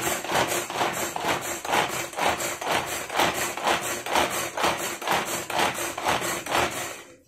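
Hand-operated pull-cord vegetable chopper with a plastic bowl, its cord pulled again and again to spin the blades through the vegetables. The strokes come fast and even, about three a second, and stop suddenly near the end.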